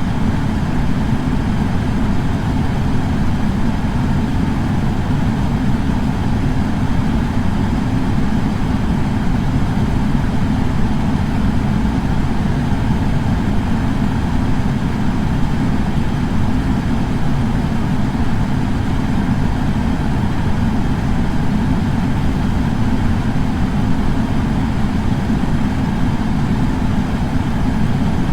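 Air purifier's fan running steadily: an even, deep rush of moving air that does not change.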